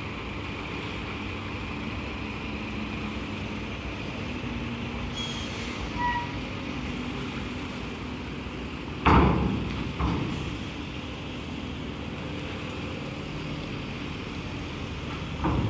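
Cars driving off a chain ferry's steel loading ramp over a steady diesel engine hum. About two-thirds of the way through, two heavy clunks about a second apart come as one car's front and then rear wheels cross the ramp edge, and another clunk follows near the end.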